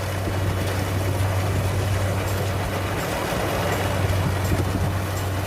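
Engine of a corn reaper (harvesting machine) running steadily with a constant low hum.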